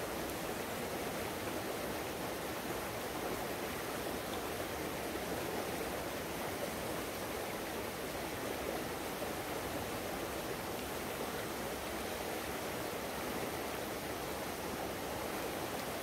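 Fast-flowing river water rushing past in a steady, even rush.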